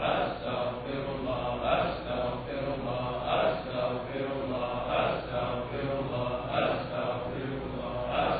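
Group of men chanting dhikr in unison, a short phrase repeated over and over in a steady rhythm, about once every one and a half seconds.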